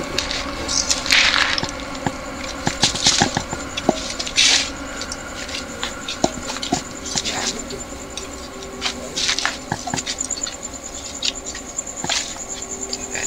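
Footsteps and handling noise, a string of irregular rustles, scuffs and clicks as people move about, over a night insect trilling high and steady, clearer in the second half.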